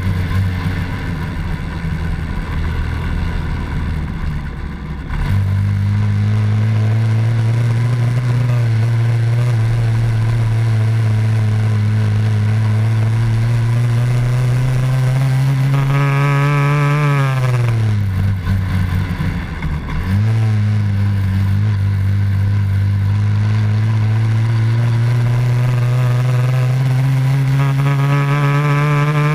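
Honda Dax 70cc's small four-stroke single-cylinder engine pulling the bike along. Its note dips about five seconds in, climbs slowly, falls away sharply about two-thirds through, then picks up and climbs again.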